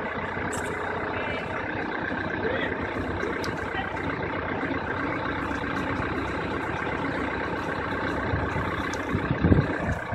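Komatsu backhoe loader's diesel engine running steadily. A few low thuds come near the end.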